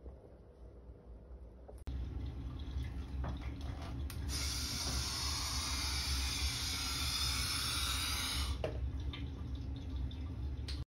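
Air rushing out of a balloon through a drinking straw on a balloon-powered plastic-bottle boat: a steady hiss lasting about four seconds that stops abruptly, over a low steady hum.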